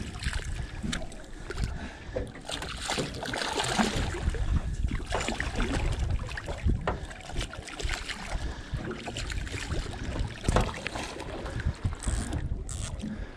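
Hooked giant trevally splashing and thrashing at the water's surface beside a small boat's hull, with wind on the microphone.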